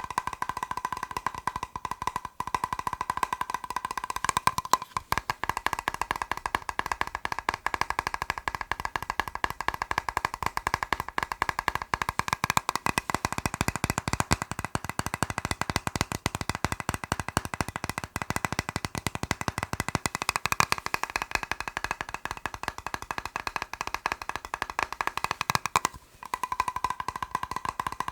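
Rapid tapping on a hollow plastic box, many taps a second, the box ringing with a steady tone under the taps. The tapping breaks off briefly about two and five seconds in and again near the end.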